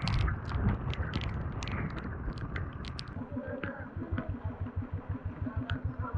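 Royal Enfield Standard 350 single-cylinder engine idling with a steady, rapid low beat that grows more distinct about halfway in. Scattered sharp clicks and clatter sound over it in the first half.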